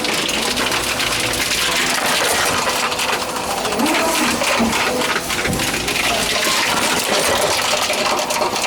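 Tomra Tx2 reverse vending machine running continuously as plastic bottles are fed in one after another, with a dense, rapid clatter and crackle of bottles being taken in and processed.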